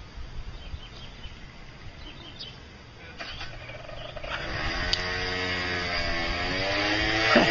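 An engine running over faint outdoor background, coming in about four seconds in and growing louder, its pitch swinging up and down as it revs.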